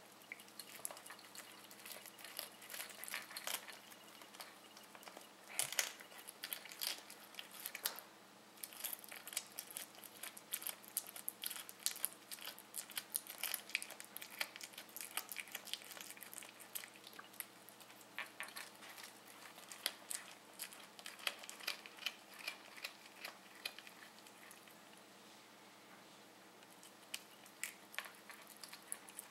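Siamese cat chewing and crunching its way through a meadow vole, with rapid irregular crunches and clicks of its teeth and a short lull near the end.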